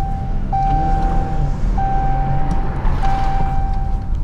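Low, steady rumble of a Dodge Challenger's engine and tyres as it rolls alongside at low speed. Over it, a steady electronic tone sounds in long beeps of about a second each, with short breaks between them.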